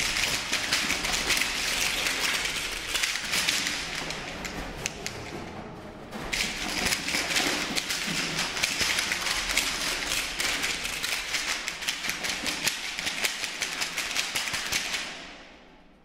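Contemporary percussion: a fast, dense clatter of clicks and taps struck on a large frame percussion set-up, in two long runs with a short break about six seconds in, stopping abruptly shortly before the end.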